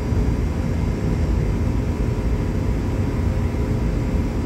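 Steady low rumble of running machinery, with a few faint steady hums above it.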